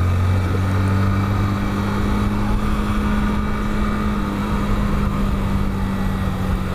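Motorcycle engine running at a steady pitch while riding, under a constant rush of wind and road noise.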